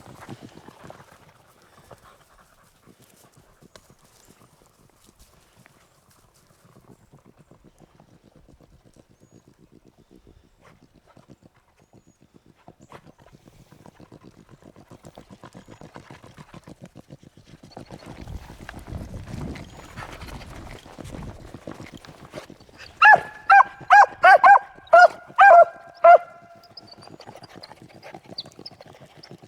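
A beagle barks about seven times in quick succession near the end, loud, short calls with a clear pitch. Before that there is faint, fast, rhythmic rustling.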